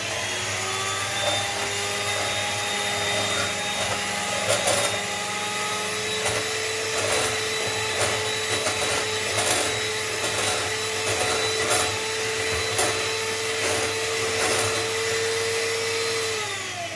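Electric mixer running steadily as it beats whipped cream topping in a bowl, with occasional clicks. The motor steps up slightly in pitch about four seconds in and winds down just before the end.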